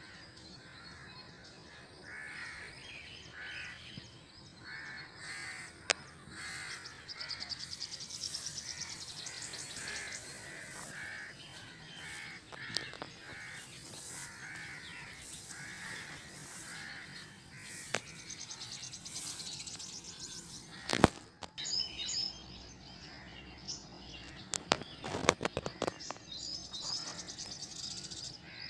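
Crows cawing over and over, with small birds chirping high and fast in between. A few sharp clicks break in, the loudest about two-thirds of the way through.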